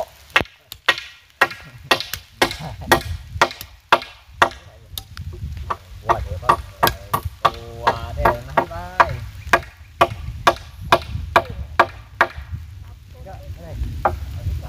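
Repeated sharp knocks of tools striking timber, irregular at about two a second, while the wooden house posts and their bracing are worked on. A voice is heard briefly about halfway through.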